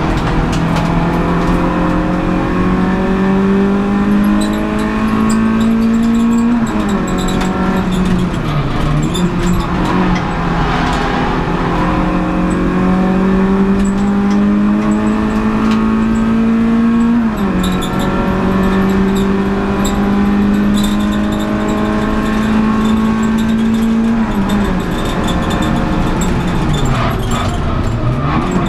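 Renault Clio Sport 182's 2.0-litre four-cylinder engine heard from inside the race car under hard acceleration. The pitch climbs steadily through the revs and drops sharply at upshifts about 6 and 17 seconds in. Near the end it falls in a series of dips as the car slows for a corner.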